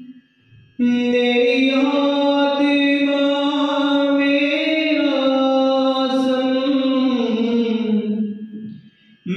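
A man singing a Hindi Christian worship song unaccompanied: after a short breath pause he holds one long drawn-out sung phrase, its pitch drifting slightly, then falling away and fading near the end.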